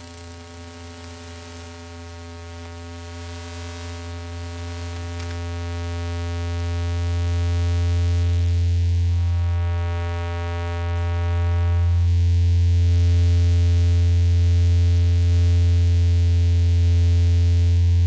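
Synthesized analog-interference drone: a steady low electrical buzz rich in overtones that swells louder over the first half, dips briefly about ten seconds in, then holds at full strength.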